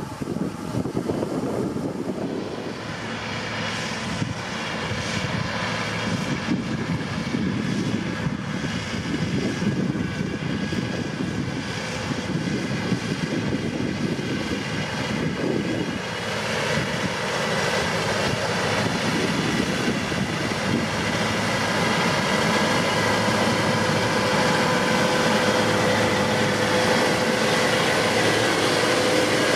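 A Kubota M7171 tractor's four-cylinder diesel engine runs steadily under load, pulling a combination seed drill with a power harrow working the soil. It is a continuous drone. From about halfway it grows louder and a steady whine comes in.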